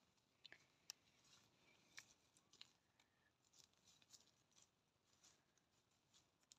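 Very faint crackling and snapping of dry leaves and twigs in forest undergrowth as a person crouches and handles plants, a dozen or so small irregular clicks over a soft hiss.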